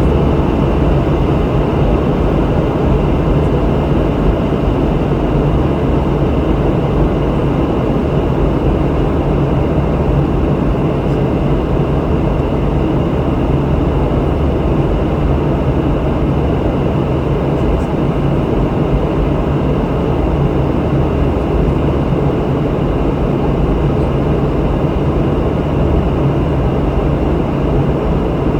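Steady cabin noise of a Boeing 717 in flight: the rear-mounted Rolls-Royce BR715 turbofans and rushing air make an even, unchanging rumble with a low steady hum.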